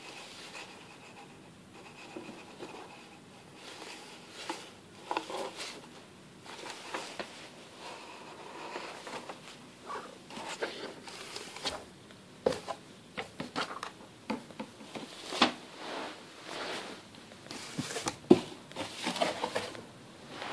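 Cardboard boxes scraped, tapped and shifted on carpet as a cat paws at them and a hand moves one: irregular rustles, scrapes and clicks, with a few sharper knocks in the second half.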